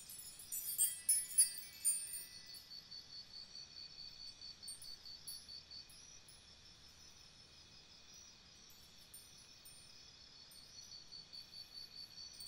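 High, tinkling chimes: a dense shimmer of many small ringing notes, loudest in the first two seconds, thinning to a faint shimmer and building again near the end.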